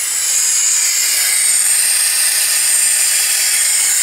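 1998 Jeep Grand Cherokee's 5.9-litre V8 running rough just after starting, heard mostly as a steady, loud hiss.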